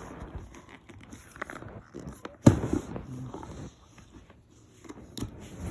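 Small plastic toy figures and their packaging being handled: scattered light clicks and rustling, with one sharper click about two and a half seconds in.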